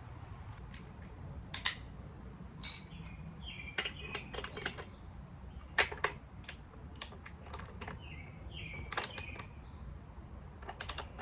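Ratchet of a click-type torque wrench clicking in short, irregular runs as the rear axle nut is tightened, with sharp metallic ticks.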